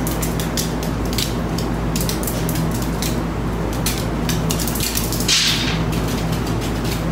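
Paintbrush strokes on a stretched canvas, a scatter of soft scratchy ticks with a brief hiss about five seconds in, over a steady low hum.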